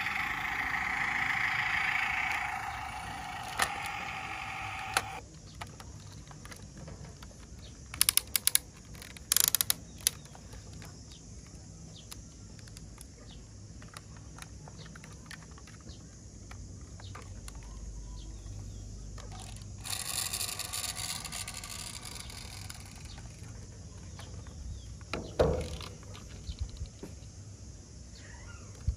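Die-cast toy crane truck being handled: its built-in electronic sound effect plays a steady pitched tone for about five seconds, then sharp plastic clicks come as its parts are moved, with another short electronic sound and a single knock later on.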